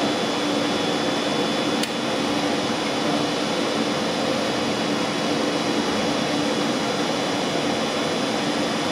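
Two Taurus electric locomotives standing coupled with their auxiliary cooling blowers running, a steady humming whir with a few constant tones. A single sharp click about two seconds in.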